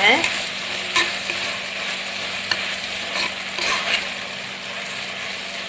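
Diced bottle gourd, onion and tomato sizzling in oil in a clay pot while a metal spoon stirs and tosses them. Scrapes and taps of the spoon against the pot stand out every second or so over a steady sizzle.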